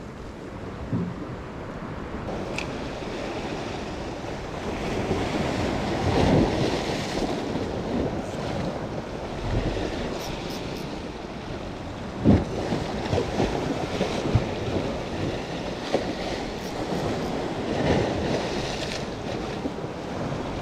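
Small waves surging and washing over a rocky reef shoreline, building and falling every several seconds, with one louder wash about halfway through. Wind buffets the microphone throughout.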